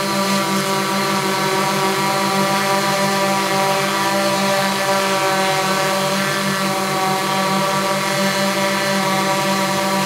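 VulcanUAV Black Widow X8 octocopter hovering, its eight Rc Tiger U5 400kv brushless motors in coaxial pairs spinning 15x5.5 carbon fibre props while carrying a 5 lb payload. The result is a steady, even multi-tone hum with a strong low buzz.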